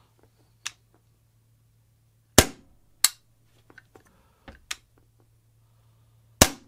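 Two shots from an Umarex Glock 17 Dual Ammo CO2 air pistol, the first with a 14mm airsoft silencer fitted and the second, about four seconds later, with it removed; each shot is followed about half a second later by a second sharp crack, with light clicks between. The mock silencer gives only a slight change in tone and no real drop in loudness.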